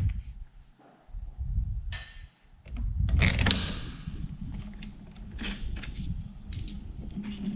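Metal clanks and creaks from parts of a combine's header reel being handled during a quick repair. There is a sharp knock about two seconds in, a louder pair of ringing clanks about a second later, then lighter scattered ticks.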